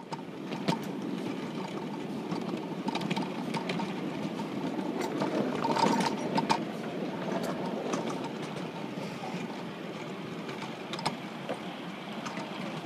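Miniature railway train's passenger cars rolling along the track: a steady rumble of steel wheels on the rails, with scattered sharp clicks and clacks at irregular intervals.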